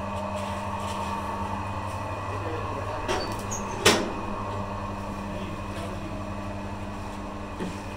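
Horizontal ribbon feed mixer running empty, its helical ribbon agitator turning in the metal trough with a steady mechanical hum. A sharp knock sounds about four seconds in, with a smaller one just before it.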